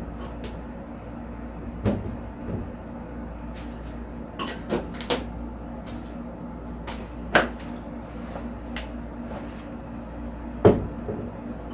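Scattered knocks and clicks of towel-rack hardware being handled during the install: single taps early on, a quick cluster of clicks about halfway in, and the loudest knock near the end, over a steady low hum.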